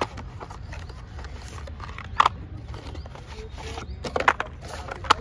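Cardboard retail box and inner tray being handled and pulled apart: paper-card rustling and scraping with a few sharp clicks and scuffs, the loudest about two seconds in and again around four seconds in, over a steady low hum.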